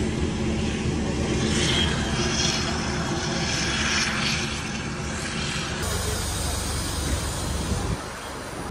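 Aircraft engine noise on an airport apron, a steady rumble with hiss. Near the end it drops to quieter indoor noise.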